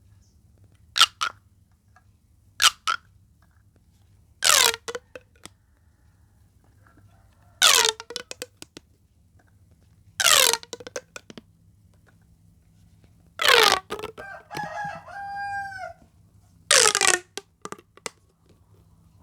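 Corrugated plastic pop tube toys being pulled and pushed, each stretch giving a quick zipping pop that falls sharply in pitch, about seven times at intervals of two to three seconds. Just past the middle, a few shorter falling squeaks come in a row.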